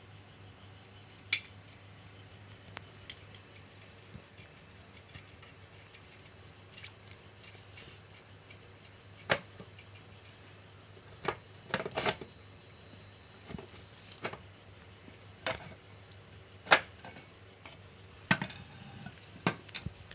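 Small metal parts and hand tools clicking and clinking as a sewing-machine clutch motor is put back together. The sharp knocks come irregularly, clustered in the second half, over a steady low hum.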